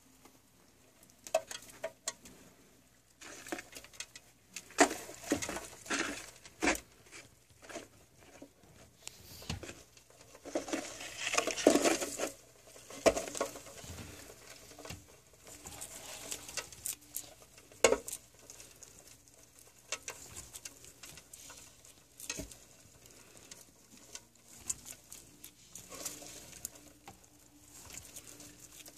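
Irregular scratchy rustling and patter with scattered sharp clicks and taps, busiest in a burst near the middle.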